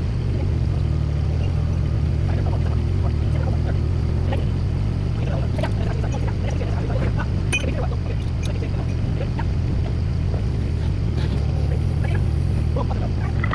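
Diesel engine of a compact construction machine running steadily under work, with scattered light knocks and clanks over the drone as boulders are lifted and moved.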